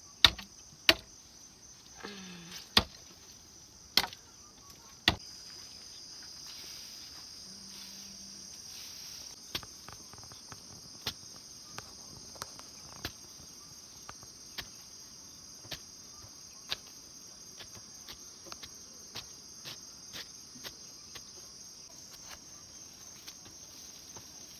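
Steady high chirring of crickets and other insects. Over it come sharp knocks: several loud ones in the first five seconds, then softer ones about once a second.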